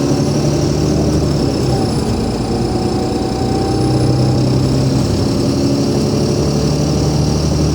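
Cummins ISL 8.9-litre six-cylinder diesel of an Alexander Dennis Enviro500 MMC double-decker bus running steadily, heard from on board, with a thin high whine over the deep engine note.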